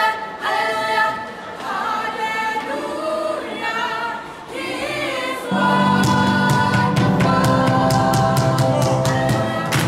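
Gospel choir singing, led by a male voice through a microphone. About halfway through the sound fills out and grows louder, with a low bass line and a steady beat coming in.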